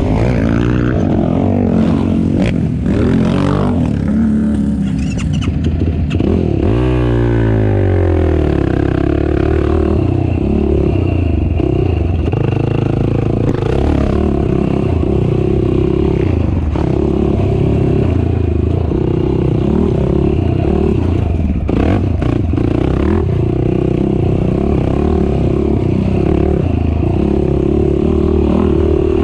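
Racing ATV engine running hard with the throttle opening and closing: it revs up in a rising sweep about seven seconds in, then runs on at high revs, with rattling and knocks from the machine over rough ground.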